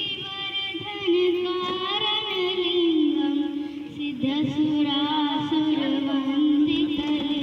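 A young girl singing solo into a handheld microphone, holding long drawn-out notes that glide slowly up and down in pitch.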